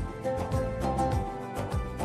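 Background music with a steady beat and deep kick drum.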